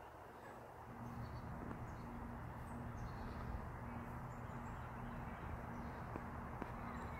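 Outdoor pond-side ambience: a steady rushing background noise that grows louder about a second in, with faint scattered bird chirps and a low hum pulsing about twice a second.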